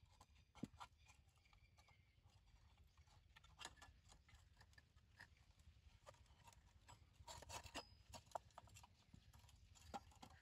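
Faint, scattered clicks and clinks of an old kerosene lantern's metal frame, wire guard and glass globe as the globe is lifted out by hand.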